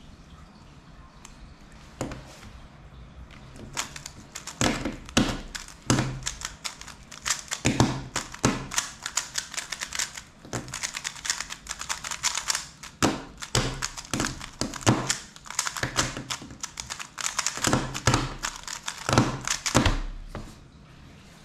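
A 3x3 speedcube, a MoYu WeiLong WR M, turned rapidly one-handed: a dense run of quick plastic clicks and clacks as the layers snap round, in fast spurts with short pauses. Near the end a hand comes down on the stackmat timer with a low thud to stop it.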